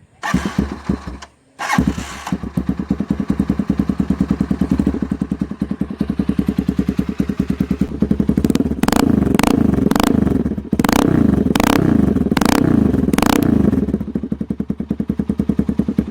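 Z200X motorcycle engine fitted with an SC-Project aftermarket exhaust on the stock elbow, loud: it starts, cuts out briefly about a second and a half in, then runs steadily. A series of quick throttle blips comes in the middle, before it settles back to idle.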